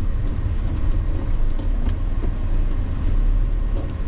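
Steady low road and engine rumble heard inside a moving vehicle's cab, with a few faint clicks and rattles over it.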